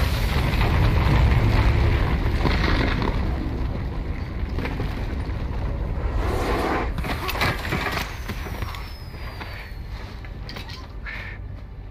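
Deep rumble of the krayt dragon's eruption from the sand, fading steadily as the dust settles, with a few scattered knocks and clicks of falling debris around the middle.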